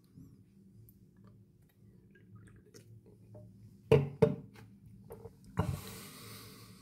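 Low steady hum with two or three sharp knocks about four seconds in, then another knock followed by about a second of rushing hiss near the end.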